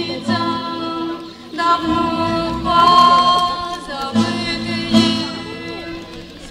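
A group of voices singing a folk song with long held notes, accompanied by a strummed acoustic guitar.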